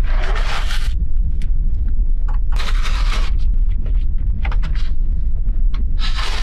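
Used window sashes being handled and slid: three long scrapes, one near the start, one about two and a half seconds in and one near the end, with short clicks and knocks between them over a steady low rumble.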